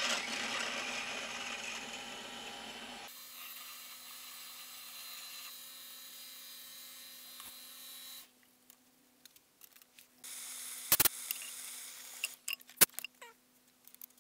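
Small metal lathe drilling a hole in a spinning metal workpiece with a twist drill fed from the tailstock, with harsh cutting noise for the first few seconds, then steadier running. About eight seconds in it stops, and a few sharp metallic knocks follow as the chuck and part are handled.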